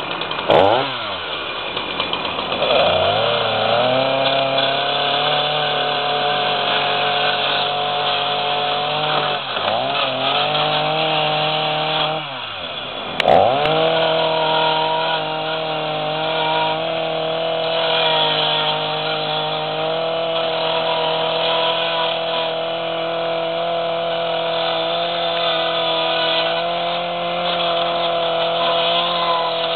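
Chainsaw running at high speed as it is lowered onto and cuts into a plastic portable CD player; its pitch drops sharply and recovers three times, about half a second in, around ten seconds and around thirteen seconds, then holds steady.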